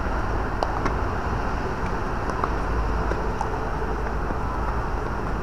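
Steady low outdoor rumble, with a few faint, sharp pops of tennis balls struck by rackets during a doubles rally.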